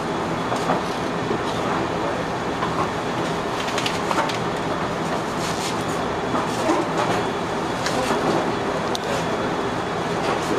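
Steady mechanical hum and rumble with a few faint clicks scattered through it.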